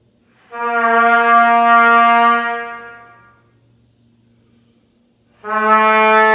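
Trumpet playing two long tones on the same low note. The first is held for about three seconds and fades away, and the second comes in about five seconds in and is held. It is a long-tone exercise in which the breath and the start of the note come in one movement.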